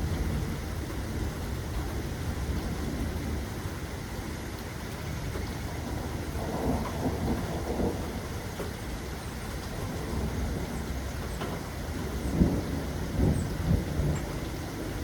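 Steady rain with rolling thunder. Low rumbles swell about halfway through and again near the end, the later one with a few sharper cracks.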